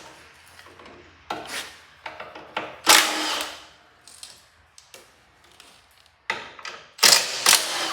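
Power tool run in four short bursts on a bolt of the tractor, the loudest about three seconds in and the last two close together near the end.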